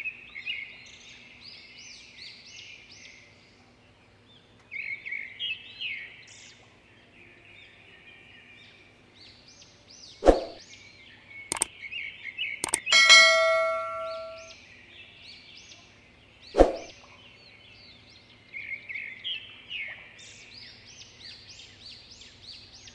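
Birds chirping on and off throughout. Around the middle come a few sharp clicks and then a bell ding that rings out and fades over about a second and a half: a subscribe-button click-and-bell sound effect.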